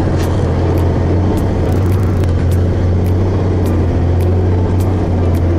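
Helicopter in flight: a steady low drone of engine and rotor.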